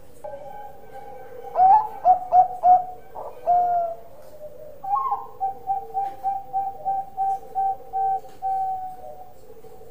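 A Bangkok-type zebra dove (perkutut) singing its cooing song. A rising opening note is followed by three short clipped coos and a longer drawn note, then, after a pause, a run of about a dozen quick even coos at roughly three a second.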